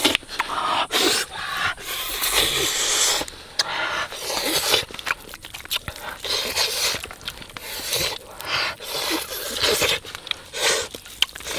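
Wet squishing and rubbing of bare hands working a sticky spice paste into the skin of a raw whole chicken, in an irregular run of rasping strokes and little smacks.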